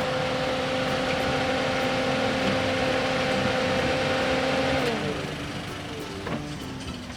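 Car engine held at high revs, then the revs drop about five seconds in.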